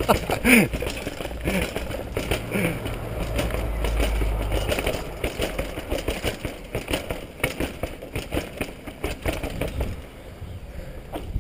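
Mountain bike rattling and clattering down stone stairs, the wheels knocking over the step edges in quick irregular hits, with a low rumble in the first half. The clatter eases near the end as the bike rolls out onto smooth road. Heard through a helmet-mounted GoPro HD Hero's microphone.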